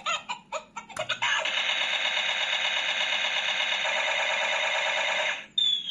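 A battery-powered toy chicken's built-in speaker plays its electronic fighting sound effect: a few short staccato blips, then about four seconds of a tinny, busy, repeating effect, and a thin falling tone near the end.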